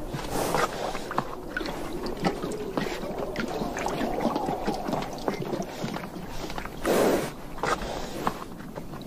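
Namib Desert horses drinking at a water trough: water splashing and sloshing in many short, irregular strokes as their muzzles work the water, with one louder burst about seven seconds in.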